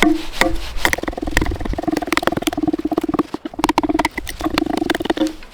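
Hand saw cutting into a log with fast back-and-forth strokes, each stroke rasping, with a ringing tone from the wood.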